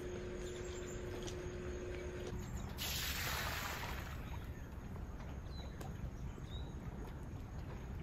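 Outdoor ambience with a low steady rumble. A faint steady hum stops about two seconds in, a brief hissing rush follows about three seconds in, and later a bird chirps twice.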